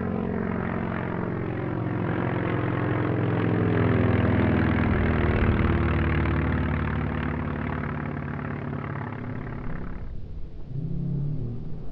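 A large RC model aircraft's Laser 160 inline-twin four-stroke glow engine in flight, flying past. It grows louder to a peak about halfway through, then fades and drops away sharply near the end.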